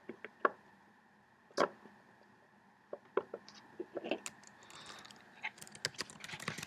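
Scattered small clicks and taps, with a run of light rustling ticks near the end: a jumper wire being handled and pushed into a plastic solderless breadboard.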